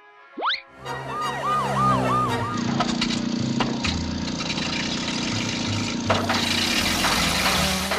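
Cartoon soundtrack effects: a quick rising whistle, then a wavering siren-like tone pulsing about three times a second, giving way to a loud, dense city-traffic din of vehicle engines that stops shortly before the end.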